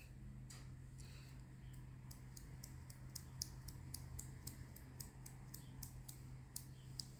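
Faint, irregular high-pitched clicks, a few a second, over a steady low hum.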